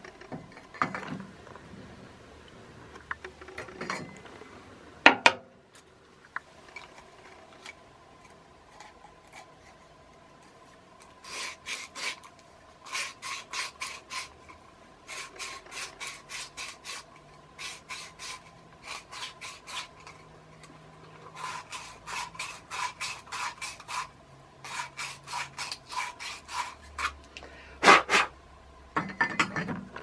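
Hand tool worked in quick rasping, scraping strokes, about three a second, in several runs through the second half. There is a single sharp knock about five seconds in.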